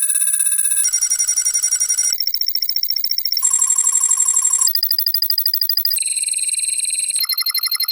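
Synthesized robot-computer "calculating" sound effect: rapid trilling electronic beeps. The set of pitches jumps to a new one about every second and a quarter, like a machine processing data.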